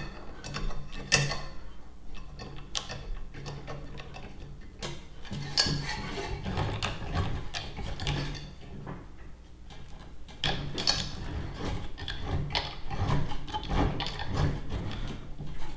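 Hand tubing cutter being turned around a copper pipe, its cutting wheel scoring the tube as it is tightened, with metal clicks and scraping.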